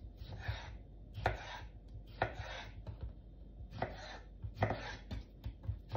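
Kitchen knife slicing pickled cucumbers on a wooden cutting board: an uneven series of short cuts, each ending in a knock of the blade on the board.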